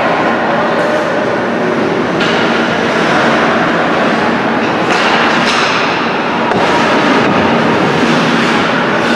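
Ice hockey play in a rink: a steady din of skates scraping the ice and echoing arena noise, with a few sharp clacks and knocks of sticks and puck about two and five seconds in.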